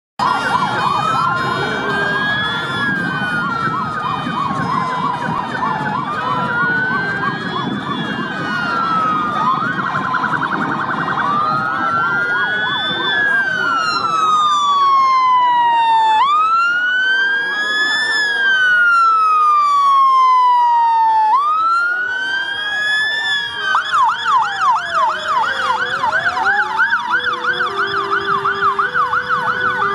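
Fire engine sirens: a slow wail rising and falling about every five seconds, switching about 24 seconds in to a fast yelp, with other sirens overlapping. A low vehicle rumble is there in the first half.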